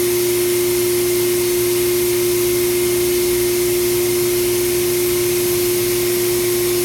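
Steady electric machinery running: a constant drone with one strong, even tone and an airy hiss, unchanging throughout, like shop air or extraction equipment left on beside the CNC cutting table.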